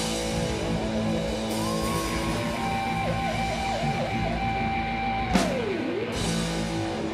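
Live rock band with electric guitars, bass and drums ringing out the end of a song. Sustained guitar chords ring over the drums, a lead guitar note is dipped in pitch several times and then dived down and back up, and cymbal crashes hit at the start and about five seconds in.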